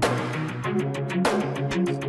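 Background music: a bass line of stepping notes under a steady beat, with a cymbal-like crash at the start and another just past a second in.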